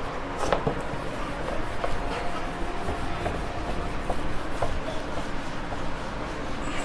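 Board eraser rubbing across a whiteboard, wiping off marker writing.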